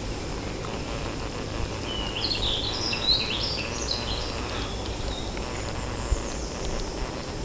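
A small bird sings a short phrase of quick high chirping notes, lasting about two seconds and starting about two seconds in, over steady outdoor background noise.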